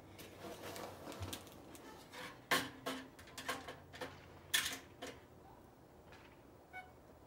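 Aluminum hitch-carrier parts clanking and clattering as they are handled and set down, a string of sharp knocks with two louder clanks about two and a half and four and a half seconds in.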